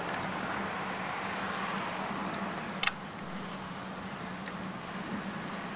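A car passing on the road beside a moving bicycle, over steady road and wind noise. A low steady hum runs underneath, and there is a sharp click just before three seconds in.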